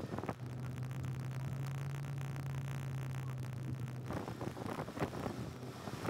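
A car driving along a rough road, heard through an open side window: wind on the microphone and road rumble, with a steady low hum for about the first four seconds that then stops.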